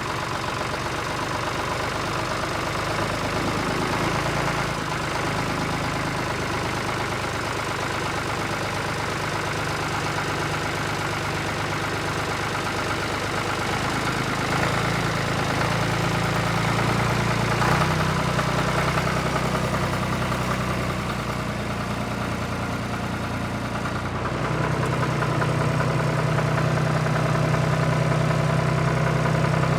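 Tractor engine running at a steady idle, its note growing louder for a few seconds midway and again for the last few seconds.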